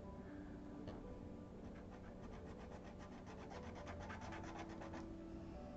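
Felt paint-pen nib scratching on paper in quick back-and-forth strokes, about five a second, faint; the nib is scratchy and worn.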